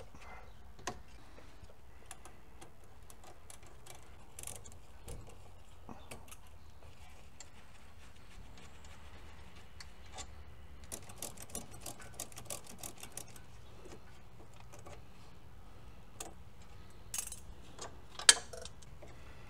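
Ratcheting wrench clicking as it turns out a rear brake caliper bolt: scattered ticks, then a quick run of clicks about eleven seconds in. A single sharp click near the end is the loudest sound.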